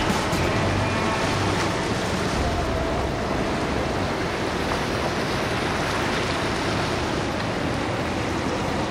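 Pardo 50 motor yacht running past at speed: a steady rush of water from its bow wave and wake, with a low engine hum underneath.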